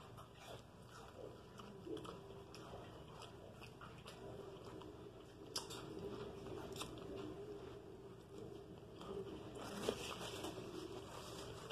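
A person chewing a mouthful of Italian beef sandwich, faint, with scattered short wet mouth clicks.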